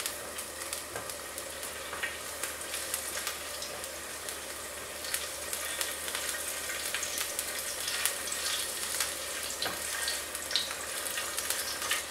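A garlic clove and a rosemary sprig sizzle in hot vegetable oil in a non-stick frying pan while a silicone spatula pushes them around, flavouring the oil. A steady light hiss carries small pops and crackles, which come more often in the second half.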